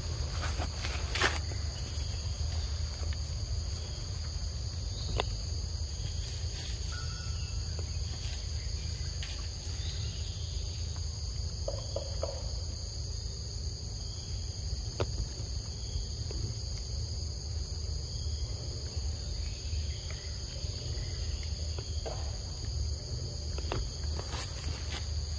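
Insects calling in a steady high-pitched chorus over a constant low rumble, with a few sharp clicks scattered through.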